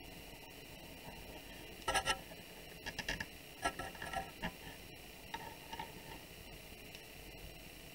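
Light clicks and scrapes of a needle tool against a wooden board while cutting out a small piece of clay: a short group about two seconds in, a busier cluster a second later, and a couple of softer ticks just after the middle, over a faint steady hiss.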